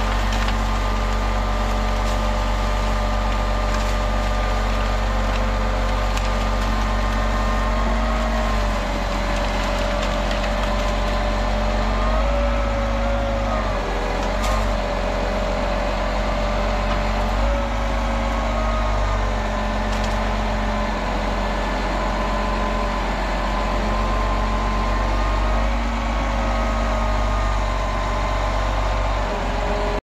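Grapple truck's diesel engine running steadily, its pitch shifting up and down a few times as the engine speed changes.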